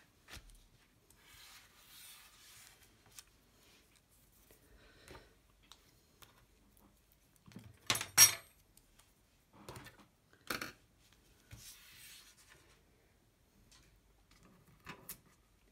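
Scissors and paper being moved about on a craft table: faint paper rustles and scattered light clicks and taps, the sharpest a quick double click about eight seconds in and another a couple of seconds later.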